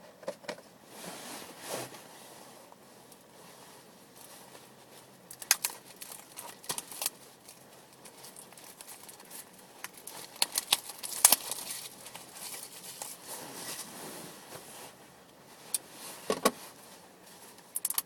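Trading cards and their packaging being handled: scattered clicks, crinkles and short swishes, the loudest about ten to eleven seconds in.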